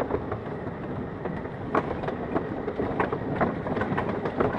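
Wooden roller coaster train rolling along its wooden track: a steady rumble from the wheels, with irregular knocks and rattles from the cars, and wind on the microphone.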